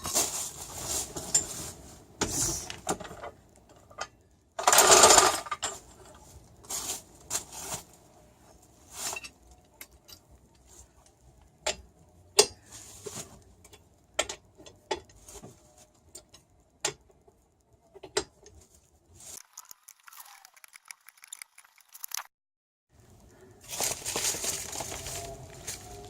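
Metal clinks and rattles of wheel nuts and hand tools being handled during a wheel change, with a louder, noisier burst lasting about a second some five seconds in.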